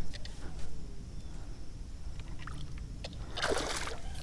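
A hooked bass splashing at the water's surface beside the kayak about three and a half seconds in, after a few faint ticks and light water sounds.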